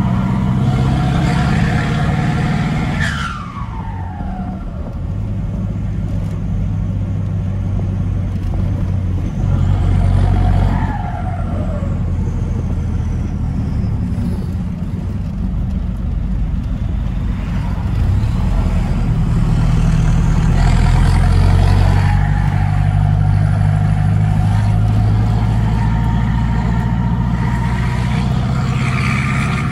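Ford F1000 pickup's turbo diesel engine heard from inside the cab while driving, running under load with its speed rising and falling. The turbo whistle drops steeply in pitch about three seconds in and again about ten seconds in as the engine eases off, and climbs again later as the truck accelerates.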